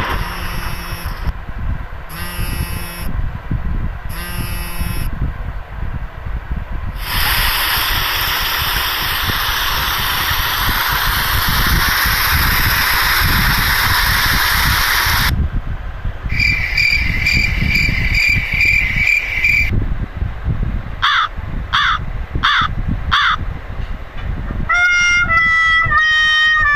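A string of different short comedy sound effects, one after another. First a few repeated short clips, then a long hissing noise for about eight seconds, then a warbling high beep, four short sharp squawks, and a stepped falling tone near the end.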